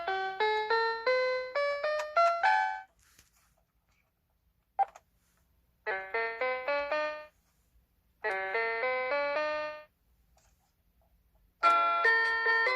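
37-key mini electronic keyboard playing quick runs of single notes in short phrases with pauses between them, with one lone note in the first pause. A louder, fuller passage with several notes sounding together starts near the end.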